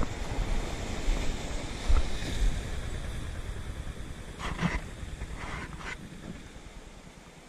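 Wind buffeting the microphone outdoors, with a few short scuffs about halfway through; it eases off near the end.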